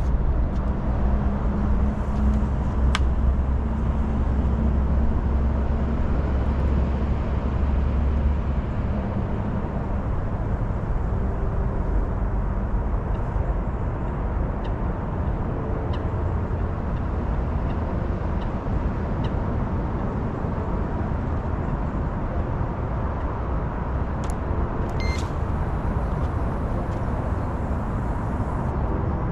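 Wind buffeting the microphone: a steady low rumble, heaviest in the first several seconds, with a few faint clicks.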